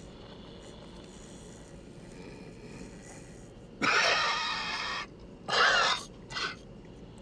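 A man snoring: a long raspy snore about four seconds in, then a shorter one with a falling whistle and a brief snort, over the steady hum of an airliner cabin.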